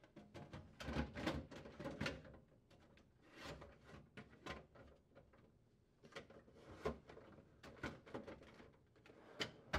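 Plastic refrigerator crisper drawers being fitted onto their slide rails and pushed in: light scraping of plastic sliding in the side channels, with scattered clicks and knocks as the bracket tabs seat.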